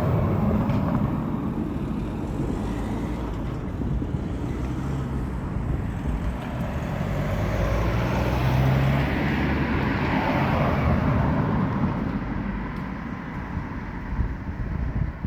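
Outdoor background noise: a steady low rumble with wind on the microphone, swelling about halfway through.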